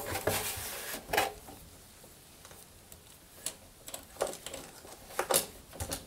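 Scattered light clicks and knocks of the heater cover and its wiring being handled against the tumble dryer's metal back panel: about half a dozen short taps, with quiet between them.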